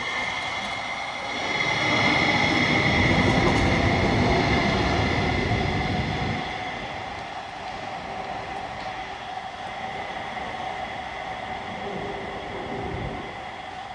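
Link light rail train pulling out of an underground station and running away into the tunnel: rumble of wheels on rail with a high, steady whine. Loudest in the first six seconds, then fading as the train recedes.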